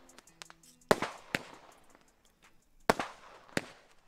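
Consumer firework battery, the NICO Thunderbolt 47-shot fan cake, firing. There are four sharp shot reports: two about a second in, half a second apart, and two more near three seconds, again half a second apart. Fainter pops and crackles come between them.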